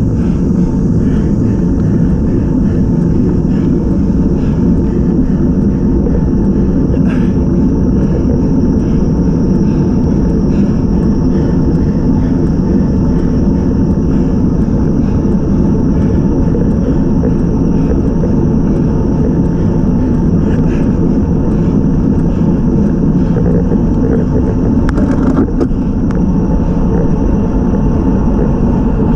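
Steady rumble of wind buffeting a bicycle-mounted action camera's microphone, mixed with tyre noise on asphalt, as a road bike is ridden. A faint steady high whine runs above it.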